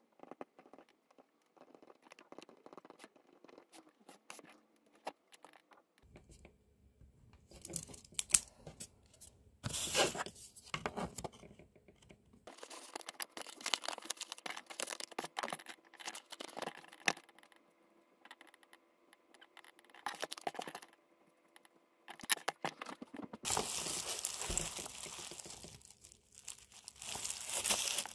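Pen scratching on paper, then letter paper and a card being folded and slipped into a paper envelope, with rustling and crinkling that comes in bursts and grows loudest near the end.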